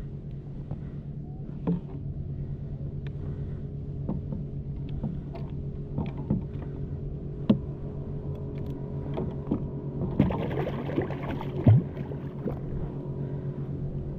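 Boat motor running steadily at trolling speed, with scattered knocks and clicks of handling in the boat and a short burst of rustling and knocking near the end.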